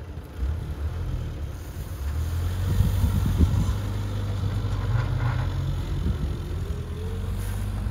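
An engine running with a steady low rumble, its pitch rising near the end.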